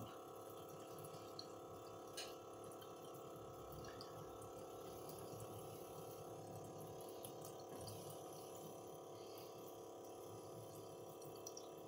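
Faint, steady hum of a small pump circulating water, with a light trickle of water.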